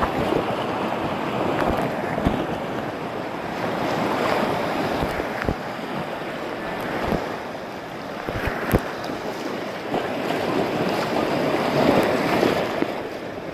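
Whitewater river rapids rushing and splashing around an inflatable kayak, with a few dull knocks.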